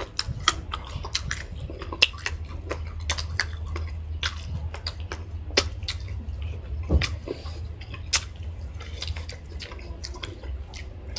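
Close-up eating sounds: chewing and biting into chicken and rice, with frequent sharp, irregular clicks and mouth smacks. A steady low hum runs underneath.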